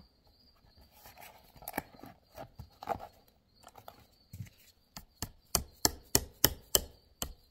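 Hammer striking a punch to drive an emblem rivet through the metal of a steering-wheel airbag module: some soft clicks and handling, then from about five seconds in a steady run of sharp taps, about three a second.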